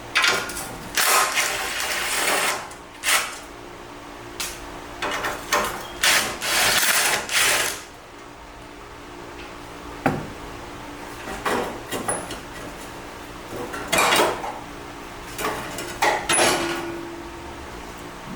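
Cordless electric ratchet running in short bursts as it spins off the exhaust mounting nuts, with metal knocks from the tool and bracket in between.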